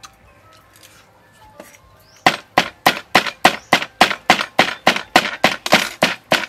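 Knife chopping through crispy deep-fried pork belly roll onto a wooden cutting board: a steady run of sharp chops, about three a second, starting about two seconds in.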